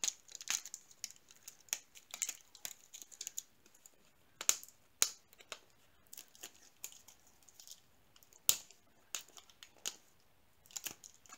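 Fingernails picking at the tape on a rolled, plastic-wrapped sticker sheet: scattered crinkles and sharp clicks of plastic and tape, a few louder ones about four and a half, five and eight and a half seconds in.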